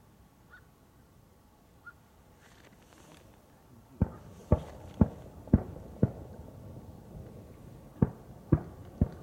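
Fireworks going off: about four seconds in, a quick run of five sharp bangs about half a second apart, then after a short pause three more at the same pace.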